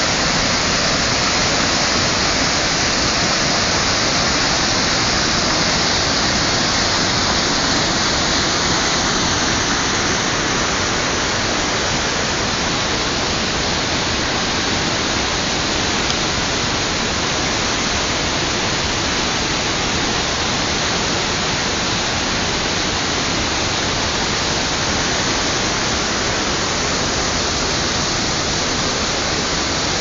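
Waterfall and rapids rushing over rock ledges, close by: a loud, steady, unbroken rush of white water.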